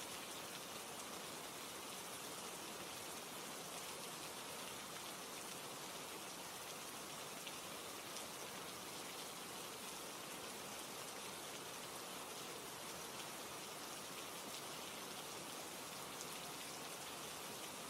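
Steady rain ambience: an even hiss of falling rain with a few faint ticks.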